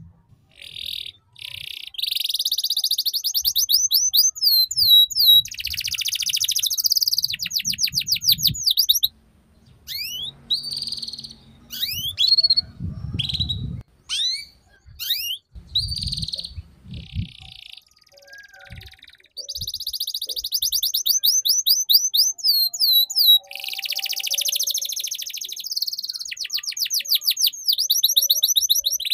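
Domestic canary singing long, rapid trills of repeated falling notes, the fast rolling 'ngeriwik' style, broken by a few short pauses.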